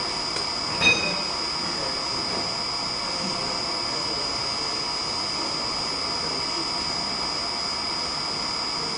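CNC wood lathe running: a steady machine noise with a constant high-pitched whine, and one sharp metallic click about a second in.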